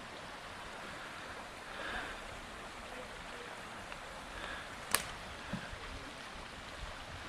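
Steady rushing of a river or stream, with a single sharp click about five seconds in.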